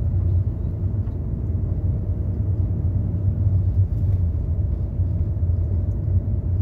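Steady low rumble of a Fiat Doblo being driven over a snowy road: engine and tyre noise heard from inside the cabin.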